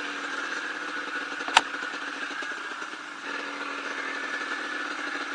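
Yamaha DT125 single-cylinder two-stroke dirt bike engine idling steadily, with one sharp click about a second and a half in.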